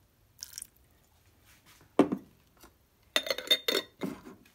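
A brief pour of pepperoncini juice into the slow cooker, then a single sharp knock about two seconds in. Near the end comes a clattering run of ringing glass-and-metal clinks as the slow cooker's glass lid is handled and set on the crock.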